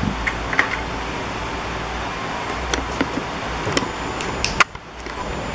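A few light clicks and taps of plastic and metal as a precision screwdriver handle is taken from its plastic case and a bit is pushed into its tip. The sharpest click comes a little before the end, over a steady background hum and hiss.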